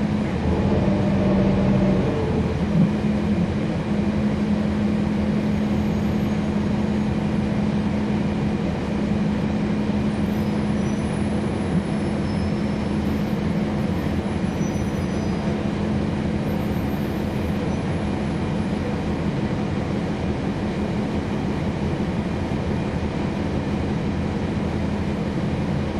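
Cabin sound aboard a 2011 NABI 40-SFW transit bus: mostly noise from its ZF Ecolife six-speed automatic transmission, a steady drone with a single held tone, over a barely audible Cummins ISL9 diesel engine. The tone breaks briefly about two seconds in.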